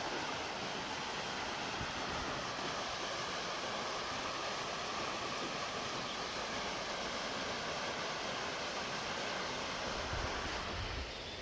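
Waterfall rushing steadily. Near the end the rush dips and wind buffets the microphone with low rumbles.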